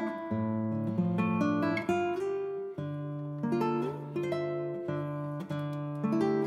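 Background music: an acoustic guitar plucking notes and chords at a steady, unhurried pace.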